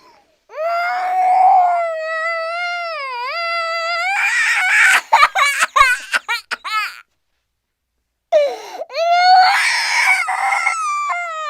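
Cartoon character crying: a long high wailing cry, then a string of short gasping sobs, a brief pause, and a second wail that trails downward in pitch.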